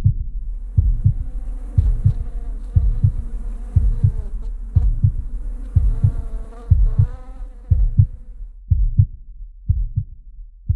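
Heartbeat sound effect: paired low thumps, about one pair a second. A wavering buzzing tone sits over the beats from about two seconds in until near the end.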